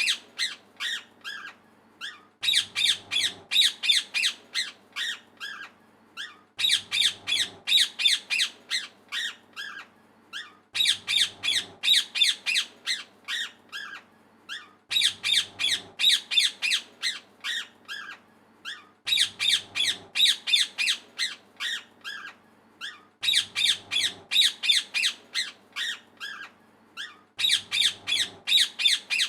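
Parrot squawking in rapid runs of harsh, high calls, about five a second. Each run fades over a couple of seconds, and a new one starts about every four seconds.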